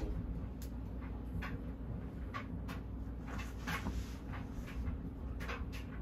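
Banvil/Envirofan Silver Line industrial ceiling fan running at speed with a steady low hum, broken by irregular light clicks about one or two a second.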